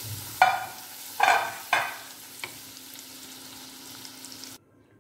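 Masala-coated green chilies sizzling in warm mustard oil in a metal kadai as they are stirred with a wooden spatula, with three louder bursts in the first two seconds. The sizzle stops abruptly near the end.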